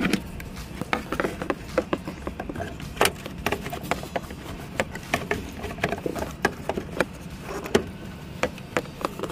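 Hands working among plastic parts and wiring in a van's engine bay behind the headlight: irregular light clicks, knocks and rustles of plastic and cable being handled and pushed into place.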